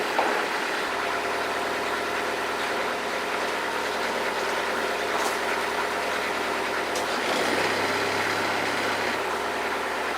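Inboard engine of a wooden motor cruiser running slow while manoeuvring off a dock. Its pitch steps up briefly about seven seconds in and settles back down about two seconds later.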